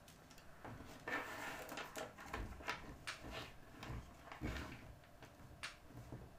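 Faint handling noises: scattered small clicks, taps and rustles as wires and a small slide switch are picked up and handled on a wooden tabletop.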